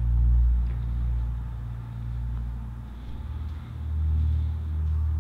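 A deep, low rumbling drone with steady low tones, swelling and easing every second or two.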